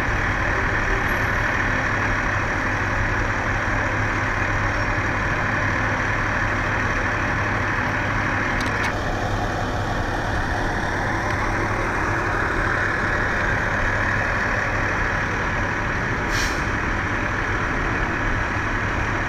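Fire engines' diesel engines idling steadily with a constant mechanical drone and hum, the tone shifting slightly about nine seconds in.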